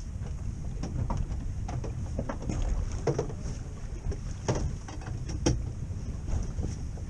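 Wind rumbling on the microphone aboard a small boat on open water, with a few short knocks or splashes, the loudest about four and a half and five and a half seconds in.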